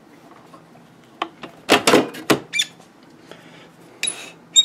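Metal rack-mount chassis (a 1U appliance in an aluminium rack bracket) being turned round and set down on a desk: a cluster of knocks and clatters about two seconds in, then short high squeaks of metal near the end.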